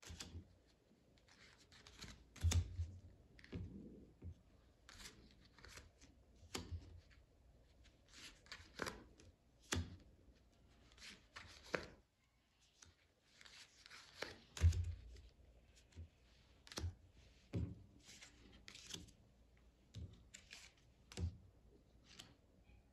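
Playing cards being flipped, dealt and laid down on a hard countertop: irregular light snaps and taps, with two duller knocks, one about two and a half seconds in and one past the middle.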